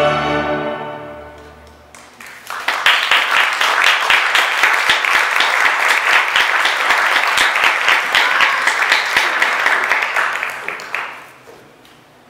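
Music fades out over the first two seconds. Then an audience applauds for about nine seconds, dying away near the end.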